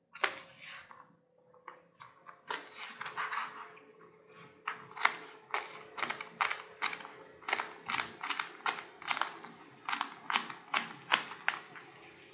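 Kitchen knife chopping celery on a plastic cutting board: a few scattered cuts, then a steady run of chops about three a second as the stalks are diced.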